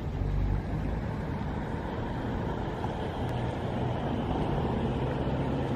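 Steady low outdoor rumble with a fainter hiss above it: background noise, with no clear single source.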